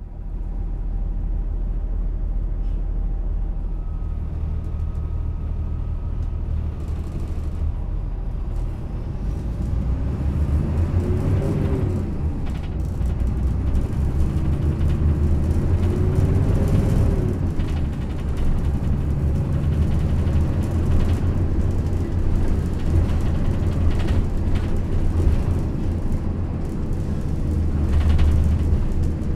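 Yutong ZK6128HG low-floor city bus with a ZF transmission, driving, heard from inside. The drivetrain pitch rises and falls twice as it pulls away. The body rattles and knocks over uneven road surface.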